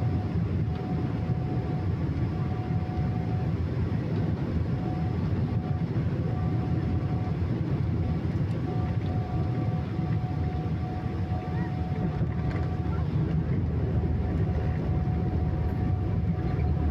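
Boeing 777-300ER jet engines (GE90s) running with a steady low rumble and a faint whine that comes and goes.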